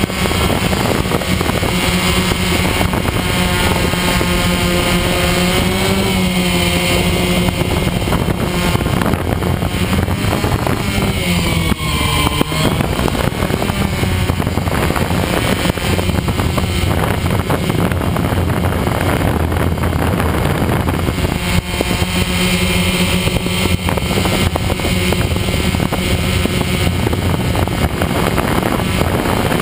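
Multirotor drone's electric motors and propellers buzzing steadily, heard from the camera it carries, with light wind noise; the pitch shifts up and down a few times as it manoeuvres.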